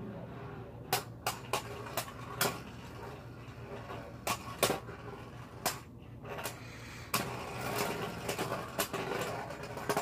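Two Beyblade Burst spinning tops, Epic Evipero and Lost Luinor, whirring in a plastic stadium, with sharp clacks each time they strike each other. The clacks come more often in the last few seconds as one top wobbles toward a stop, the survivor finish.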